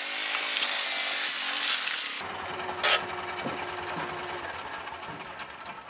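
Engine of a side-by-side utility vehicle running as it drives slowly toward the listener, its pitch rising and falling gently, then settling into a low, even run. There is a single sharp knock about three seconds in.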